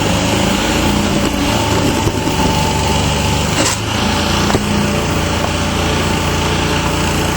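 A small engine running steadily, with a couple of sharp knocks about halfway through.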